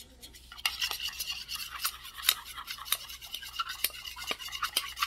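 A spoon stirring a thick honey mixture in a small stainless-steel cup: rapid scraping and clinking against the cup's sides, starting about half a second in.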